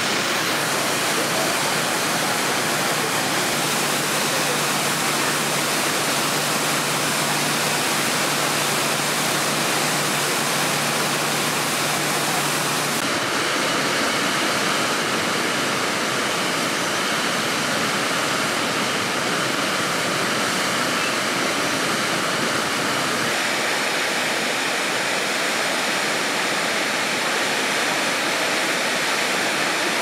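Steady, loud rush of falling water from a large waterfall pouring in a broad curtain. About halfway through it changes abruptly to the sound of a smaller, stepped waterfall cascading over rock ledges into a pool.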